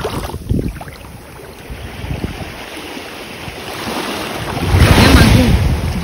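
Sea waves washing onto the shore, with one wave building and breaking loudest about five seconds in. Wind buffets the microphone with low rumbles.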